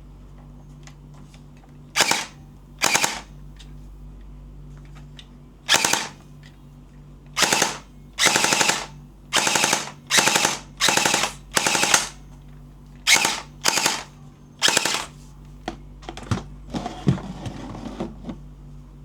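SRL gel blaster firing about a dozen short full-auto bursts, each a rapid rattle of shots under a second long, at irregular gaps. Near the end come a few lighter clicks and rattles.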